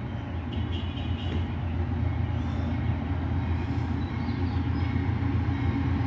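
Diesel locomotives of an approaching freight train, a steady low rumble building slightly, with the locomotive bell ringing faintly.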